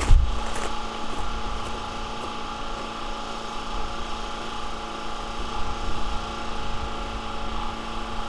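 A steady mechanical hum, like an engine running, with a low rumble beneath it.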